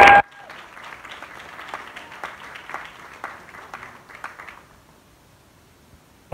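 Audience applause that is loud for a moment, then drops suddenly to faint scattered clapping as the recording's sound cuts out, fading to near silence about four and a half seconds in.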